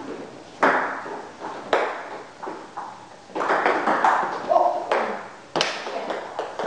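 A table tennis ball clicking sharply off the paddles and the table during a rally, about one hit a second, each with a short trailing echo.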